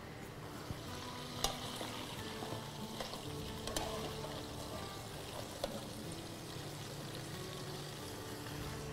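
Steady sizzle of food frying, with a few sharp clicks of a metal serving spoon against an aluminium tray, over faint background music.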